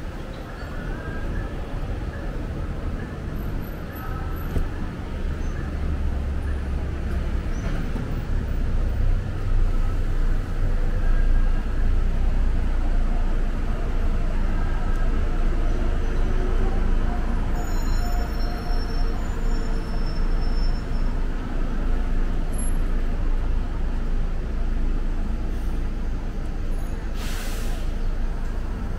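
Street traffic noise: vehicles and buses running past, with a steady low rumble that swells about ten seconds in. A short hiss comes near the end.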